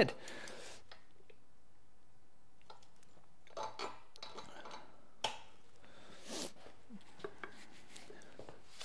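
A few light clicks and clinks of metal gearbox parts being handled, with short rustles; the sharpest click comes about five seconds in.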